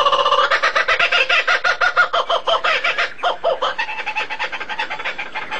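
A bird calling in a rapid, continuous series of short, harsh repeated notes, several a second.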